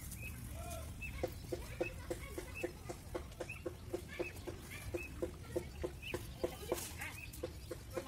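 A rapid, regular series of short animal calls, about four a second, with higher chirping calls over them, starting about a second in.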